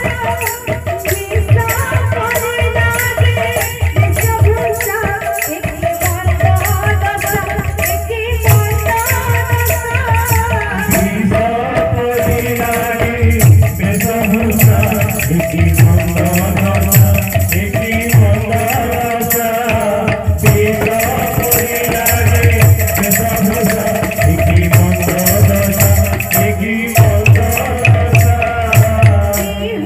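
Kirtan music: two double-headed barrel drums (khol/mridanga) beating a steady rhythm under a continuous jingling of hand cymbals, with a melody sung over them.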